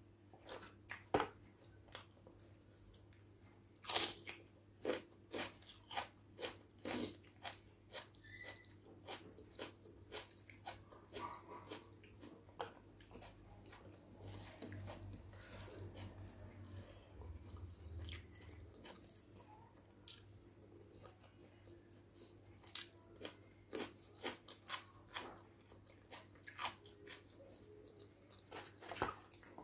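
Close-miked chewing of egg biryani eaten by hand: irregular sharp, wet mouth clicks and smacks, a few each second, the loudest about four seconds in.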